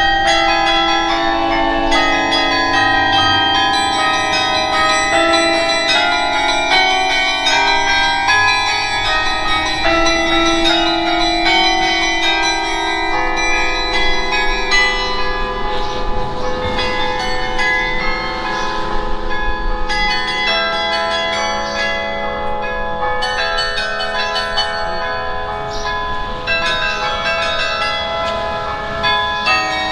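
Carillon bells in a church tower playing a tune, several notes struck together and in quick succession, each ringing on and overlapping the next.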